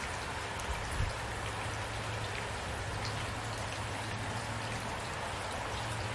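Steady rain falling, a constant hiss with individual drops ticking through it, and a brief low thump about a second in.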